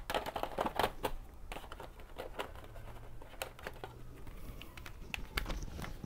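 Plastic CD jewel cases being handled, clicking and tapping: a quick cluster of clicks in the first second, then scattered single clicks.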